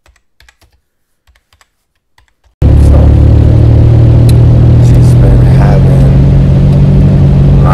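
A few soft typing clicks from a typewriter text effect, then, about two and a half seconds in, a sudden loud, steady low rumble of a car's cabin on the move, with a man's voice faintly now and then.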